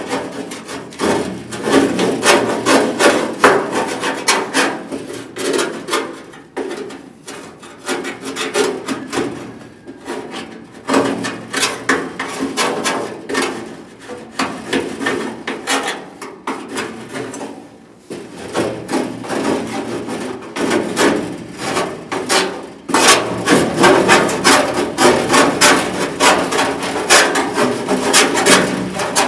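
Scraping and rubbing by hand on the bare steel inner panel of a 1974 Ford F250 door, in quick repeated strokes with a short pause a little past halfway.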